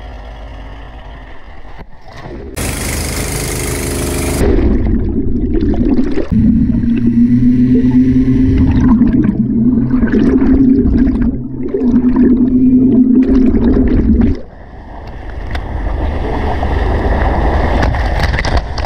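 Underwater hull-cleaning machine with two rotating brushes, heard from a camera mounted on it. It starts with a short loud hiss. It then hums steadily and loudly underwater for about ten seconds amid bubbling, and gives way to rushing, splashing water near the end as it reaches the surface.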